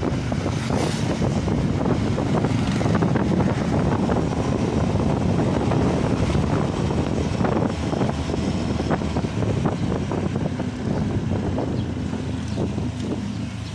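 A motorcycle riding along a street: a steady engine and road rumble with wind buffeting the microphone, easing off a little near the end.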